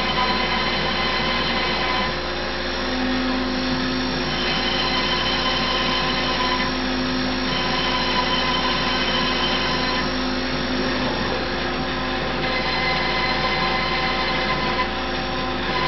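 CNC router table's router spindle running steadily while it countersinks holes in a spoil board, the sound shifting in tone every few seconds as the machine works from one hole to the next.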